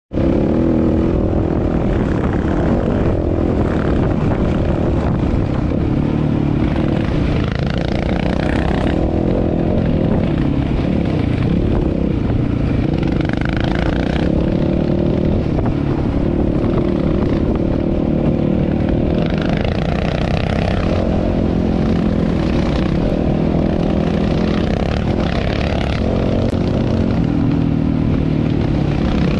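Off-road motorcycle engine running steadily under way, its drone holding a fairly even pitch and level.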